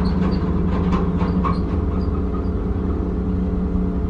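Diesel engine of a log loader running steadily, heard from inside its cab, while an empty log truck's trailer passes close by, its frame and bunks rattling and clanking during the first couple of seconds.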